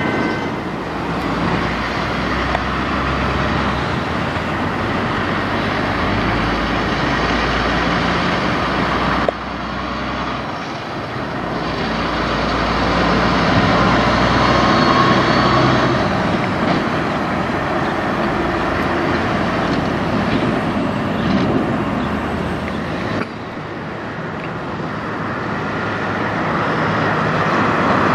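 Diesel semi-truck engines running as tractor-trailers pull away and drive past, with tyre and road noise. The sound breaks off abruptly twice as one truck gives way to the next.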